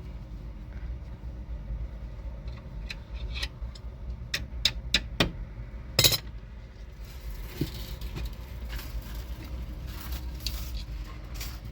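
A series of sharp knocks and taps, about half a dozen close together, the loudest one about six seconds in, then fainter scattered taps, over a steady low rumble.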